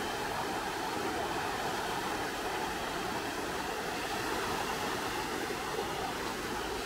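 Whitewater rapids of a forest stream rushing over rocks, a steady even rush of water.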